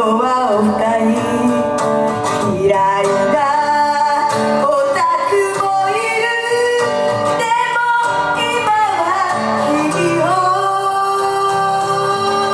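A woman sings an idol-pop song live into a handheld microphone, her melodic line gliding between held notes over loud, full pop accompaniment.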